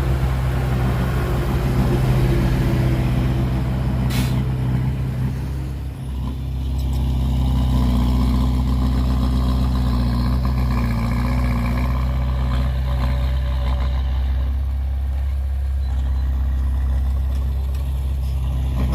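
Heavy diesel engine of earthmoving equipment running steadily, with a brief hiss about four seconds in.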